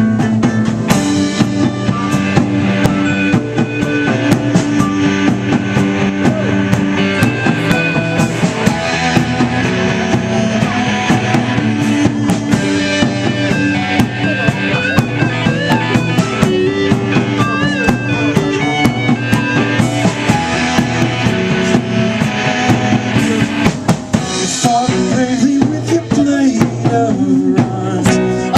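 Live rock band playing an instrumental passage with a full drum kit, snare rimshots and bass drum, over sustained bass and guitar notes.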